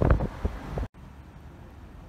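Wind buffeting the microphone in irregular low rumbling gusts, cutting off abruptly about a second in. A much quieter, steady low background follows.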